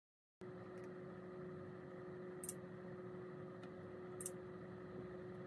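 Faint steady hum with one low tone held throughout, after a brief moment of dead silence at the start. A few short, high ticks sound, the clearest about two and a half and four and a quarter seconds in.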